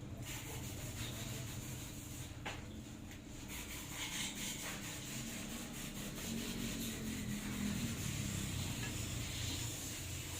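Steady rubbing and scraping of hand work over a faint low hum, with a click about two and a half seconds in.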